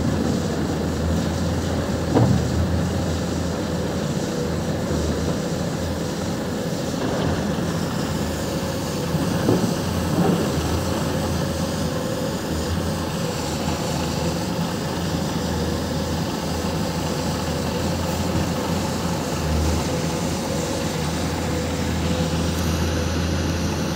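Heavy diesel machinery running steadily: a deep, constant engine drone with a faint steady whine over it. A few short knocks are heard about two seconds in and again around nine and ten seconds.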